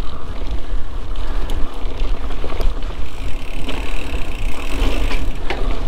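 Wind buffeting the microphone of a camera on a moving mountain bike, a steady low rumble, with tyre noise on the dirt trail and a few sharp clicks and rattles from the bike.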